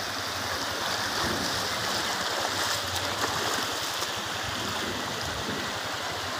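Floodwater flowing with a steady rushing noise.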